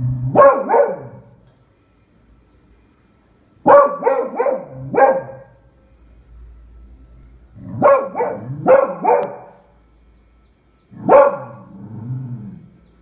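Beagle alarm barking in four quick volleys of two to four sharp barks, spaced a few seconds apart. The last volley is a single bark that trails off into a lower, drawn-out note.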